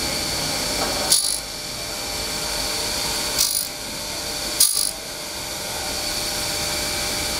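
Circular saw of a uPVC profile cutting machine running with a steady high whine, broken three times by short, sharp hissing bursts.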